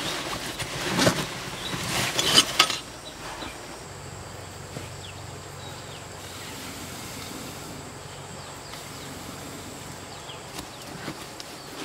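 Rustling and scraping of a fabric backpack being handled, loudest about one and two and a half seconds in. It then gives way to quiet background ambience with a steady, thin, high insect drone.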